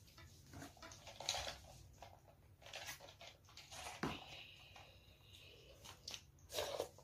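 Eating sounds: a metal spoon and chopsticks scraping and clinking in a bowl of ramen, with short sounds scattered through, and a louder slurp of noodles and broth from the spoon near the end.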